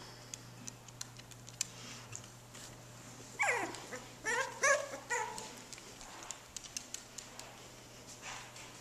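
Maltipoo puppies whimpering and yipping: a falling whine a little over three seconds in, then a quick run of short, high yips about a second later. Faint scattered clicks sound before and after.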